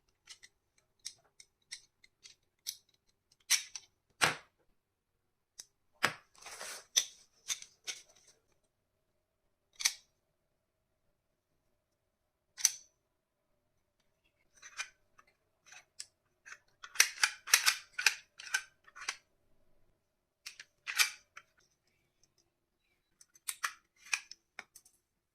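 Sharp plastic clicks and snaps from a shell-ejection toy pistol being handled and worked, scattered singly, with a quick run of clicks about two-thirds of the way through.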